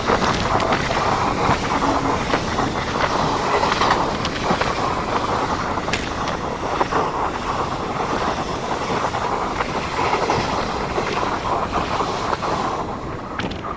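A train running past with a steady rumble of wheels on the rails and a few sharp clicks, dying away near the end.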